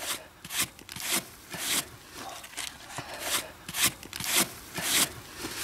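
Small hand brush sweeping sand in quick swishes, about two strokes a second.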